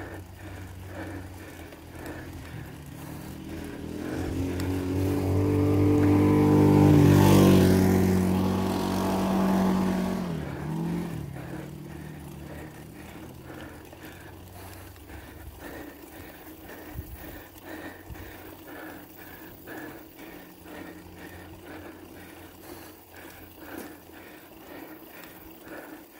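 A motor vehicle's engine draws near and grows loud about seven seconds in, then drops in pitch as it passes and fades away. Under it runs the steady wind and tyre noise of a bicycle rolling on a paved lane.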